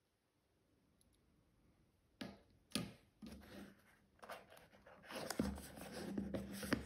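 Handling noise from a small cardboard box being picked up and worked open by hand: scraping and rubbing with scattered taps, starting a couple of seconds in and ending in a sharp tap.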